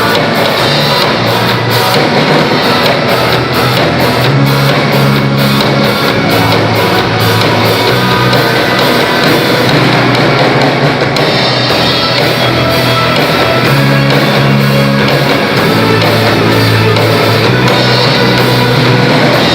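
Rock band playing loudly, with drum kit, bass and guitar, held bass notes changing every couple of seconds.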